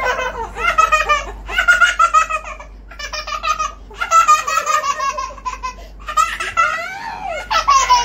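A toddler laughing hard and high-pitched, in a string of long bouts with short breaks between them.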